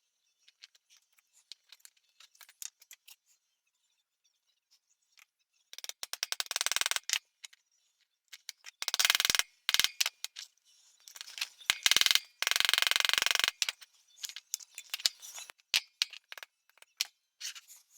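Pocket knife being worked on by hand during reassembly: scattered small metal clicks, then four bursts of rapid clicking and scraping, each about a second long.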